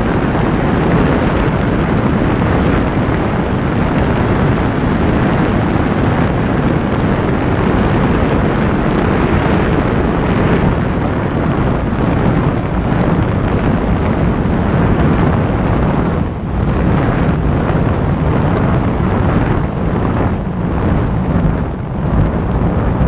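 Loud, steady wind rush over the microphone of a camera mounted on a light plane's wingtip, through final approach, touchdown and rollout on a dirt airstrip, with a few brief dips in level late on as the plane slows.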